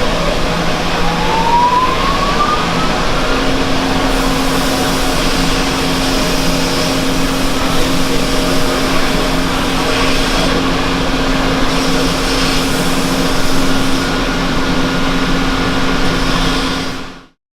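Steady rushing air and motor hum of spray-booth equipment while epoxy primer is sprayed, with a pitch rising over the first few seconds as a motor spins up and a steady hum joining about three seconds in. The noise cuts off shortly before the end.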